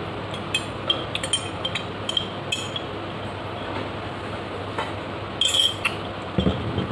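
Metal spoon clinking and scraping inside a glass jar while the last of the oats are scooped out: clusters of short clinks with a brief glassy ring. A duller knock comes near the end.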